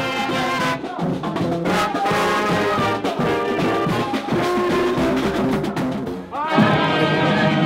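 A street marching band's brass horns playing a tune, with a sudden switch to louder playing about six and a half seconds in.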